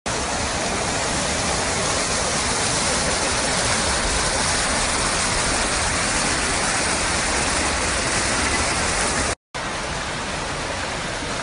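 Garden fountains splashing steadily, a continuous rushing of water; it cuts out for a moment near the end, then carries on a little quieter.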